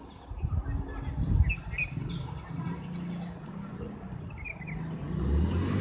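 Background noise: a low rumble with two brief clusters of short, high chirps, like small birds, about a second and a half in and again near four and a half seconds.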